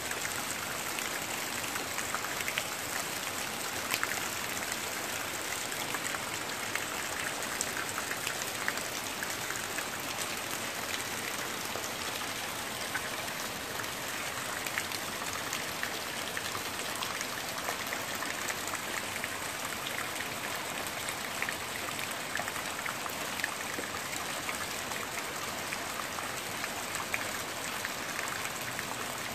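Steady rain falling on trees and garden foliage: a constant hiss strewn with many small drop ticks. The uploader takes it for the rain of an approaching typhoon.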